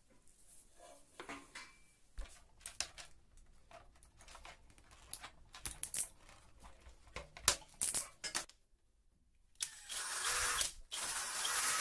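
Scattered clicks and knocks as clear plastic tubing is handled and cut with a utility knife. About ten seconds in, a cordless drill runs in two spells with a short break between them.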